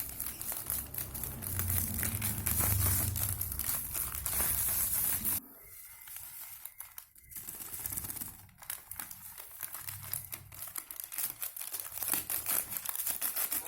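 Crinkling, crackly rustling from hands working and crumbling the bait ingredients, louder for about five seconds, then dropping suddenly to fainter, scattered crackling.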